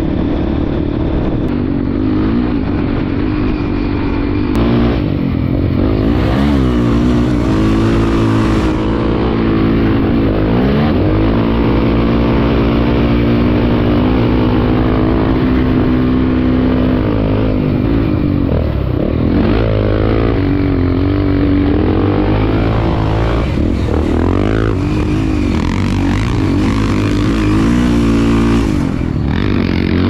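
Single-cylinder trail motorcycle engine running during a ride, its pitch rising and falling several times with changes of throttle.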